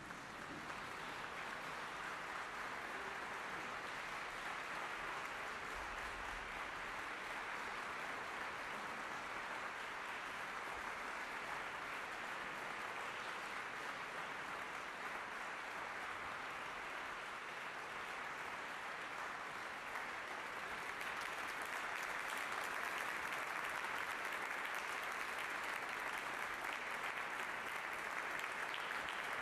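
Audience and choir applauding in a large concert hall, a steady clapping that breaks out of silence at the start and swells a little about two-thirds of the way through.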